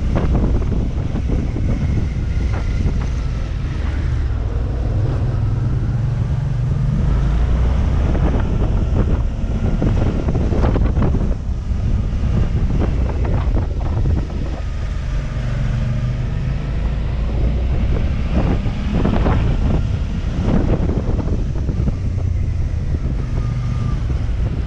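Motorcycle engine running on a hairpin climb, its note falling and rising with the throttle through the bends, under heavy wind buffeting on a helmet-mounted microphone.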